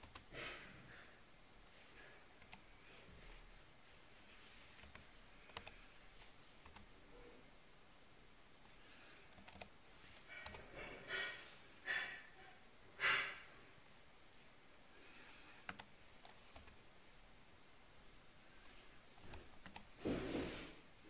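Computer keyboard keys pressed now and then, a few separate clicks spread through, along with several short breaths close to the microphone, the loudest near the end.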